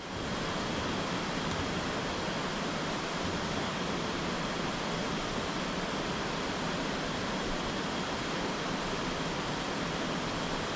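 Steady rush of flowing water, even and unbroken, with a faint steady high-pitched tone above it.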